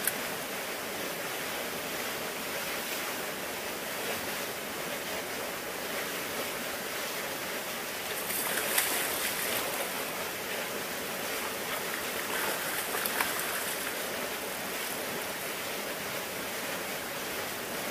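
Steady rushing of a fast-flowing river's current, with a short louder surge about nine seconds in.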